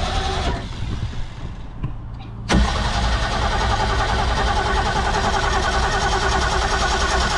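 The inboard engine of a 1988 Ski Supreme ski boat being cranked by its starter without catching: a short crank that stops about half a second in, then a second, longer crank starting suddenly about two and a half seconds in with an even, rhythmic turning-over. The engine will not start, and the owners suspect it has no spark.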